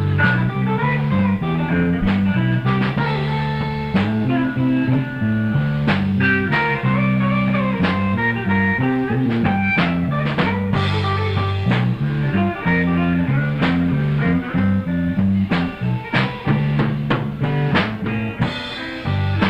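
Live blues band playing an instrumental passage of a slow blues: guitar lines over a bass line and drum kit, with no singing.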